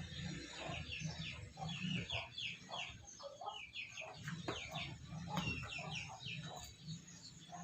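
Chickens clucking, with short calls repeating throughout.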